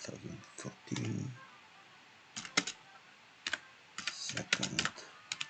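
Typing on a computer keyboard: sharp keystrokes come in short, irregular bursts with pauses between them as a line of text is typed and corrected.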